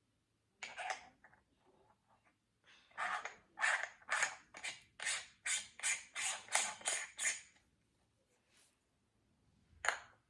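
Handling noise: a quick run of about a dozen short scraping, rustling strokes, roughly three a second, with a single sharp click near the end.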